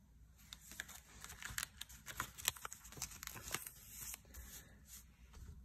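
Paper planner pages being handled and turned, with small rustles and crinkles for about four seconds.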